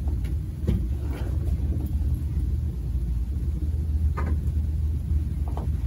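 Steady low rumble of room background noise, with a few faint taps and knocks scattered through it.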